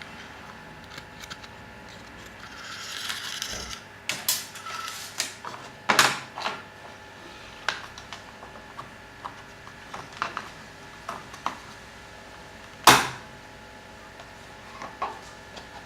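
Laser-cut MDF box pieces handled and slotted together by hand: scattered light clicks and knocks with a short rustle about three seconds in and one louder knock near the end, over a faint steady hum.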